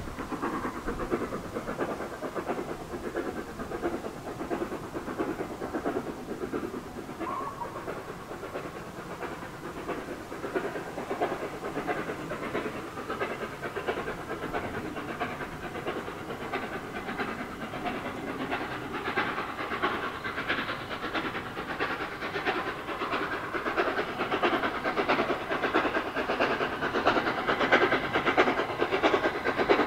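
LNER Gresley A3 Pacific 60103 Flying Scotsman working a train under steam, its three-cylinder exhaust beating rapidly. It grows steadily louder over the second half as the locomotive comes closer.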